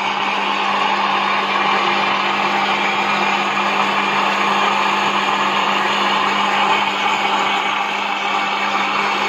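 Electric blender running steadily, grinding sliced tomatoes and a little water into a smooth paste, with a steady low motor hum under the noise of the spinning blades.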